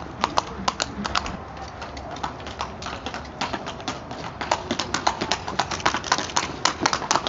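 Hooves of an Icelandic stallion clip-clopping on a paved yard as it is led in hand. The hoofbeats thin out and fade between about one and a half and four seconds in, then come back closer together and louder.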